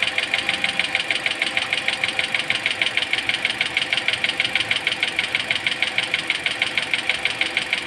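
Toyota Altis engine idling with a fast, even knocking, about seven knocks a second, sharp rather than deep. The knock came on after the engine ran with no coolant and goes with the air bubbles that keep rising in its cooling system.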